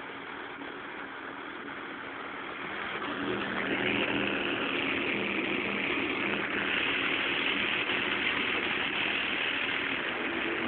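Toyota Starlet's engine running steadily, growing louder about three seconds in and holding at the higher level.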